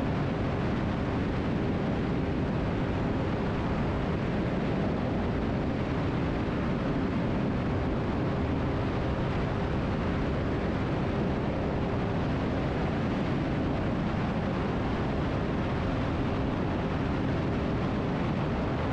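Cessna T310R's two turbocharged Continental six-cylinder engines and propellers running at climb power just after takeoff: a steady, unchanging drone.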